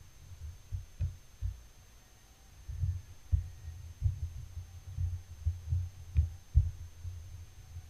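Irregular dull, low thumps and a few sharper knocks from hands working at a tabletop, handling a cloth tote bag and a small round dyeing stamp.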